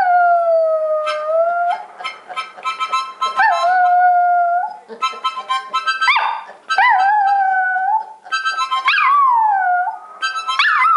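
Dog howling along with a harmonica: about five long howls that slide down then level off, each a second or two, between short bursts of harmonica chords.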